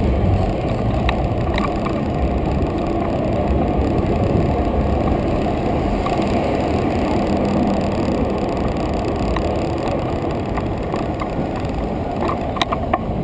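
Wind rushing over the microphone of a bicycle-mounted camera while riding, a steady low rumble, with a few sharp clicks near the end.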